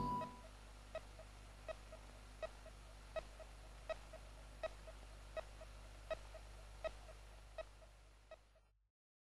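Faint electronic bleeps repeat steadily, a short pip about every three quarters of a second with softer pips in between, over a low hum. They stop near the end.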